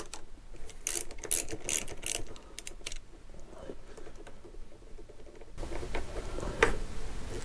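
Ratchet wrench clicking in quick runs as the bottom bolt of a Brembo radial brake caliper is undone, over the first three seconds. A single louder sharp click follows near the end.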